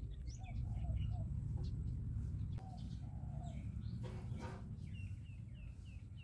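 Birds calling: short repeated chirps and calls, with a quick run of chirps near the end, over a steady low rumble.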